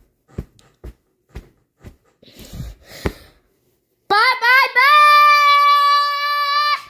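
A child's high voice holds one long sung note that wavers for a moment and then stays steady, cutting off suddenly near the end. Before it there are a few soft clicks.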